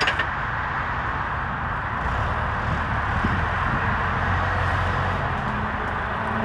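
Tractor engine running steadily, with its note rising a little near the end.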